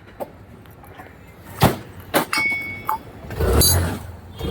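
A few sharp metal knocks, the second leaving a brief ringing tone, then a low engine rumble swells near the end.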